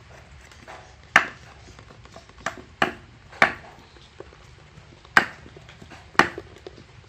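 Cleaver chopping small fish (climbing perch) on a wooden block: about seven sharp knocks at irregular intervals, two of them close together near the end.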